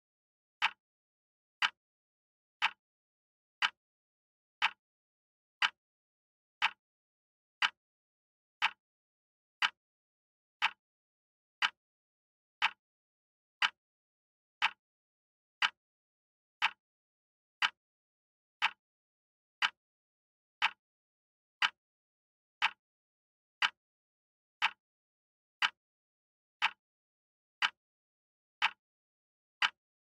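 Acctim radio-controlled quartz wall clock ticking, one short, sharp tick each second, evenly spaced.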